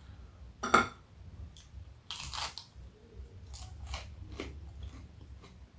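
Close-up crunching and chewing of crispy fried chicken nuggets. A sharp click comes a little under a second in, then a dense crunch around two seconds, then a run of short crisp crackles as the mouthful is chewed.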